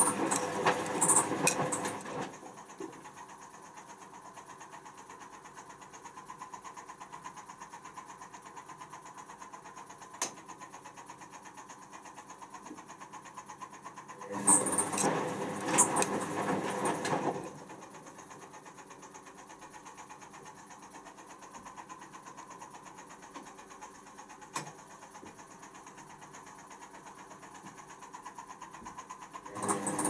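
Candy C1040 front-loading washing machine in the fill stage of a cotton pre-wash: the drum tumbles the load in turns of about three seconds, at the start, in the middle and again at the end. In the pauses between the turns a quieter steady sound runs on, with two single clicks.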